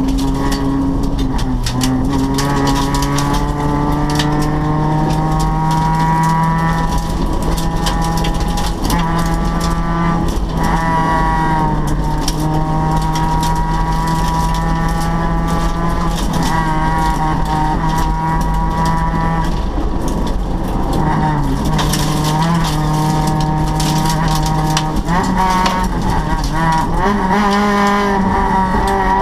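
Rally car's engine heard from inside the cabin, running hard at high revs along a gravel stage. The note dips and climbs again at several gear changes, with a scatter of sharp clicks from gravel against the car.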